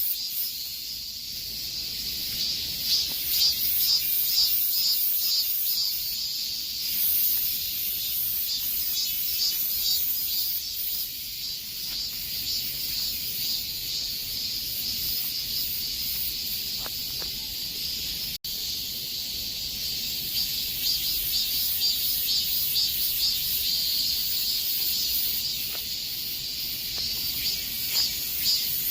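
Cicadas singing in a steady high-pitched chorus, pulsing rapidly. It cuts out for an instant about two-thirds of the way through.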